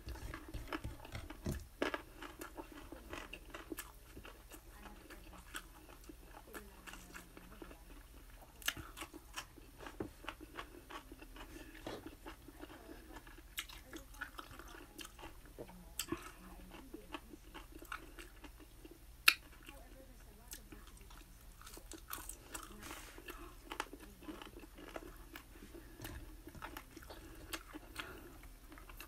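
Close-up chewing and crunching of bacon, chicken wings and pickle, with scattered light clicks of a fork on a plate and one sharper click about two-thirds of the way through.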